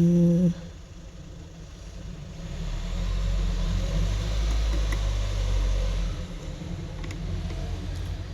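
Low, steady rumble of a motor vehicle engine that swells about two and a half seconds in and eases off about six seconds in. A short buzzing tone opens the stretch, and a few faint clicks come near the end.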